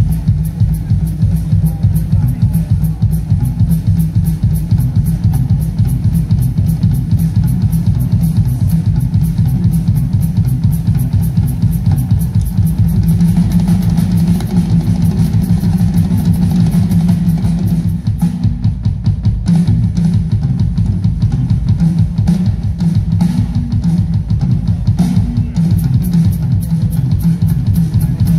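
A live rock band playing: drum kit, electric guitars and bass guitar, loud and heavy in the low end as heard from the audience through a phone microphone. The high cymbal-like ticking drops out for several seconds past the middle and comes back near the end.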